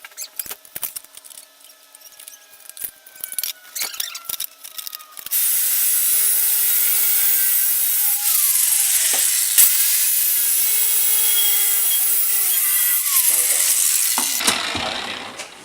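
Angle grinder with an 80-grit flap disc grinding a steel exhaust pipe clean before welding. It runs steadily for about nine seconds, after a few seconds of scattered clicks and knocks.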